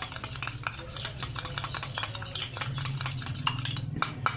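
A spoon stirring liquid in a small glass, clinking rapidly and repeatedly against the glass, with a couple of louder clinks near the end.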